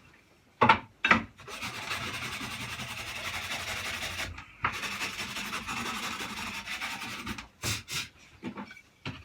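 Sanding the edges of a small wooden block, a steady rasping rub in two long spells with a short break between. Two sharp knocks come about half a second and a second in, and a few short knocks follow the sanding near the end.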